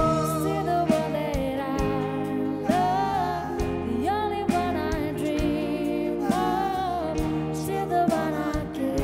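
Live band music: a woman singing lead, holding notes with vibrato, over acoustic guitar, bass guitar, electric guitar and drum kit.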